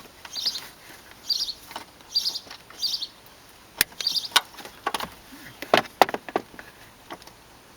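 A bird chirping over and over, short high calls about once a second, mixed with a few sharp clicks and knocks. The clicks are loudest past the middle.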